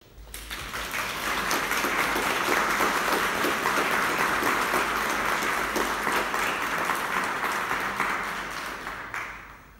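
Audience applauding in a concert hall, building up within the first second, holding steady, then dying away near the end.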